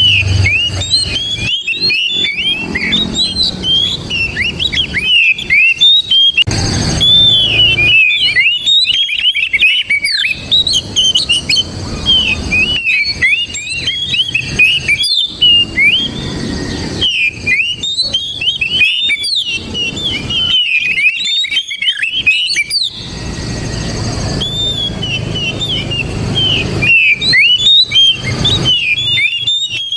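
Oriental magpie-robin (kacer) singing a long, rapid, varied run of whistled notes, broken by short pauses. A low background rumble comes in near the start and again in the second half.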